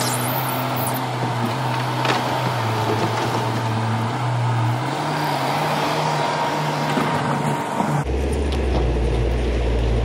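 Bobcat T590 compact track loader's diesel engine running steadily as the loader pushes soil to backfill a trench, with a single clank about two seconds in. About eight seconds in the sound changes abruptly to a deeper, heavier engine rumble from close beside the machine.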